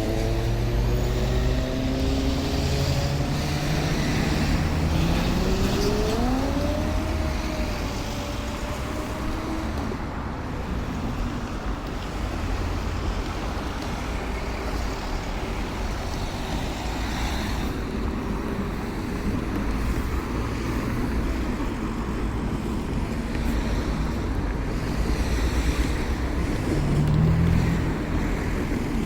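Diesel train passing at the level crossing: its engine note climbs in pitch over the first several seconds as it picks up speed, then gives way to a steady rumble.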